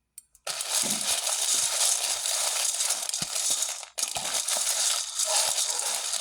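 Dry dog kibble being stirred with spoonfuls of pumpkin in a dog bowl: a steady scraping, crunching rustle with small clicks. It pauses briefly about four seconds in, then goes on.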